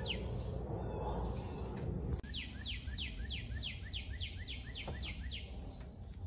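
A songbird singing a quick run of about a dozen down-slurred whistles, roughly three a second, over a steady low rumble.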